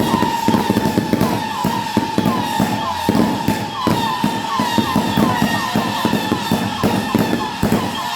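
Fireworks going off in a rapid, continuous run of bangs and crackles, with no break. A steady high tone with a short chirp about twice a second runs through it.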